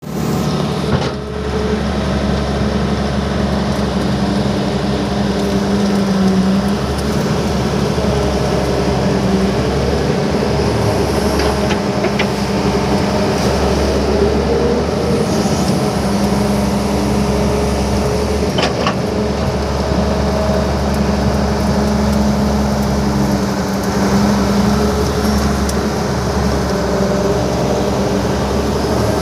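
Caterpillar excavator's diesel engine running steadily under working load, its note swelling and easing every few seconds as it works, with a few short knocks.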